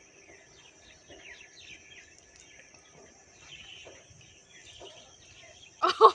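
Birds chirping and twittering over a steady, high-pitched insect drone. Just before the end, a person's voice calls out briefly and loudly.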